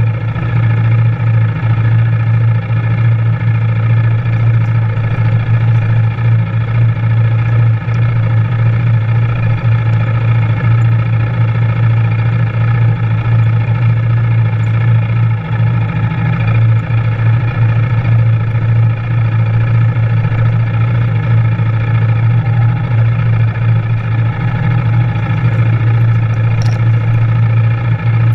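2020 Yamaha Raptor 700R SE quad's single-cylinder four-stroke engine running at a steady pitch while being ridden.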